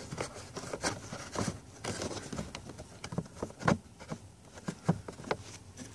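Irregular light clicks and crinkling taps as a new cabin air filter is pushed into its plastic housing behind the glove box.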